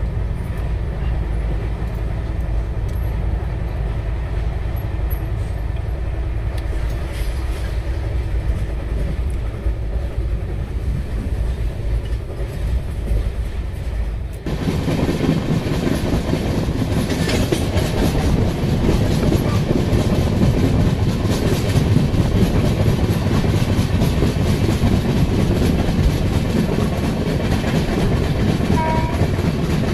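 Express passenger train running along the track, heard from on board: a steady rumble of the coaches with some clickety-clack of wheels over rail joints. About halfway through the sound changes abruptly, becoming louder and fuller.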